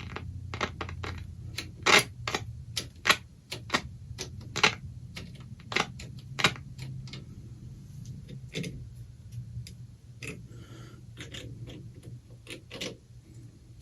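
Vintage AM/shortwave tube radio, a 1946 Olympic 6-601, warming up on reduced line voltage. It gives a steady low hum with irregular clicks and crackles, a few a second, as it is tuned before any station comes in.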